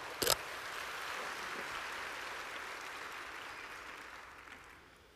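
Audience applauding, the clapping swelling and then fading away about four to five seconds in, with one sharp knock about a third of a second in.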